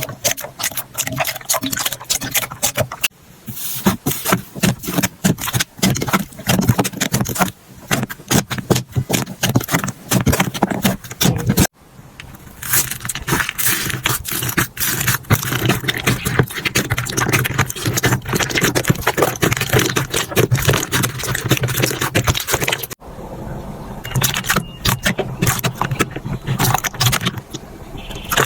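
Slime being squeezed, pressed and poked by hand, making dense crackling and popping clicks. The sound changes abruptly about 3, 12 and 23 seconds in as one slime gives way to another.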